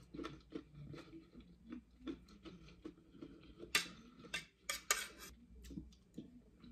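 Metal fork clinking and scraping against a plate while picking up food, a run of light irregular clicks with a few louder clinks past the middle.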